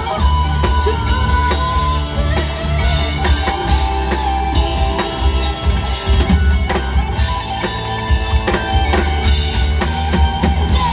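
A live rock band playing loudly through a PA: drum kit, electric guitars and bass, with a heavy, steady low end.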